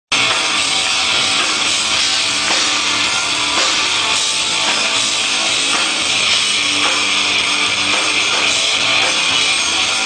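Rock band playing live: drum kit with cymbals and electric guitars, an instrumental stretch before the singing starts.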